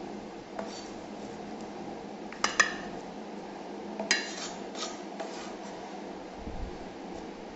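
A handful of short knocks and clinks from a kitchen cleaver, wooden cutting board and stainless steel bowl as chopped water celery is moved from the board into the bowl; the loudest are two close together about two and a half seconds in.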